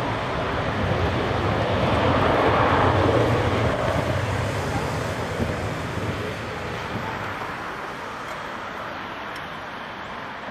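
Jet airliner engines: a broad rushing noise over a low hum that swells about two to three seconds in, then slowly fades.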